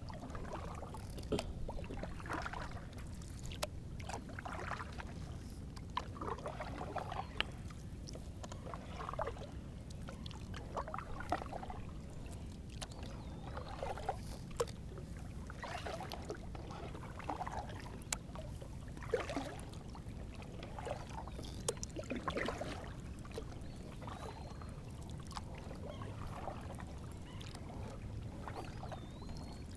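Paddle strokes in lake water, a short splash and drip about once a second.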